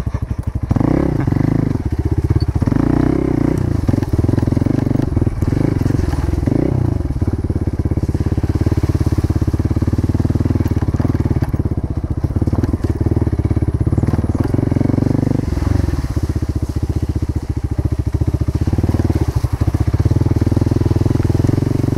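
Motorcycle engine running steadily under way, its low, even firing pulses continuing without a break.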